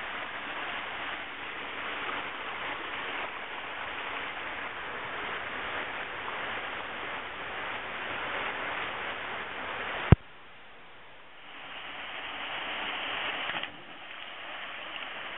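Steady rush of a waterfall. About two-thirds of the way through it cuts off with a sharp click and drops away, then builds back up and drops suddenly once more near the end.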